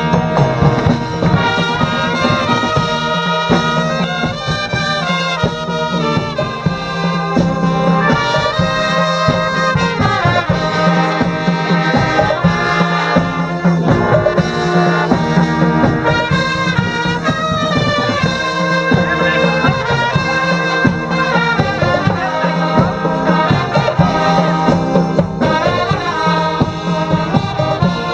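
Dweilorkest, a Dutch street brass band, playing a lively tune: trumpets and trombones over a steady low bass note.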